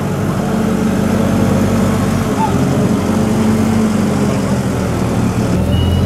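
Farm loader tractor's engine running steadily, a low even drone that turns a little deeper and louder near the end.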